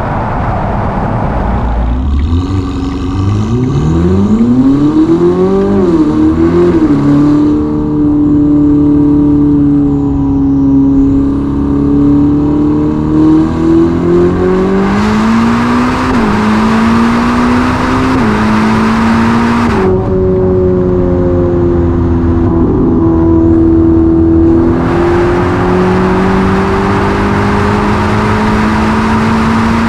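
Ferrari SF90's twin-turbo V8 with a Novitec sport exhaust accelerating hard at autobahn speed. The engine note climbs steeply a couple of seconds in, holds, then rises and drops back in steps through several upshifts about halfway through, and keeps climbing slowly, over a steady rush of wind and road noise.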